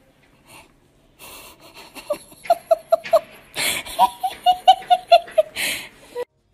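A person laughing in two bouts of quick, rhythmic pulses, with breathy gasps between and after them; it cuts off suddenly near the end.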